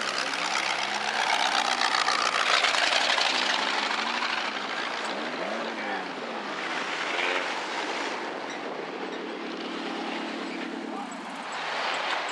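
A slow procession of demolition derby cars and pickup trucks towing derby cars on trailers driving past, with engines running and tyre noise on the pavement. Engine notes rise and fall as each vehicle goes by, and a steady engine drone holds from about eight to eleven seconds in.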